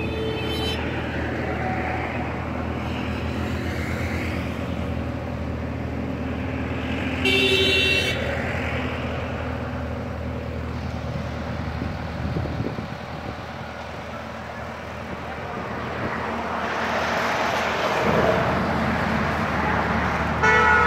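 Heavy machinery engine running steadily, rising in level over the last few seconds. A horn sounds once for about a second, around seven seconds in.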